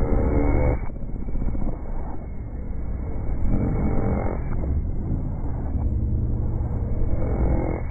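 Heavily distorted, pitched-down song reduced to a dense, muffled low rumble with little clear melody. It drops suddenly about a second in and swells again around four seconds in and near the end.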